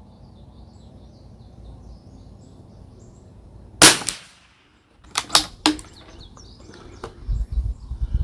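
A single shot from a .22 LR Anschutz 1761 bolt-action rifle about four seconds in, sharp and loud with a short decay, followed by several sharp metallic clicks of the bolt being worked. Faint bird chirps are heard before the shot.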